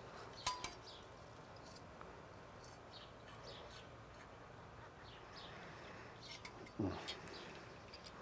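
Faint scraping and a light metallic clink, about half a second in, as a spatula slides chunks of meat off a stainless rotisserie spit onto a wire cooling rack. Birds chirp faintly in the background.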